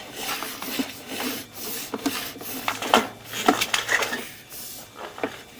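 Sewer inspection camera head being pushed through a cast iron drain line, knocking and scraping irregularly against the pipe walls with a short metallic ring.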